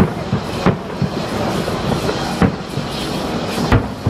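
Fireworks display: aerial shells bursting with about four sharp bangs over a continuous dense crackle and hiss of burning stars.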